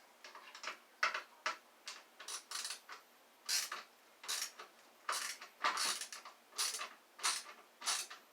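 Ratcheting screwdriver clicking in a run of short strokes, uneven at first and then about one every half second or so, as it works a screw on a vacuum wand.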